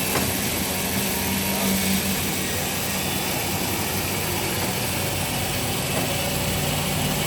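Steady engine drone of heavy machinery, an even low hum under a broad noise haze.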